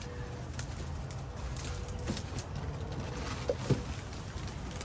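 Crinkling plastic wrap and cardboard handling as a wrapped electric fan shroud is worked out of its shipping box, with one louder knock about three and a half seconds in.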